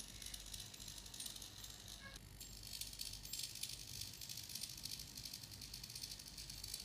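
Small 9 g hobby servos buzzing and chattering as they drive a solar-tracker mirror, heard as a fast, faint rattle.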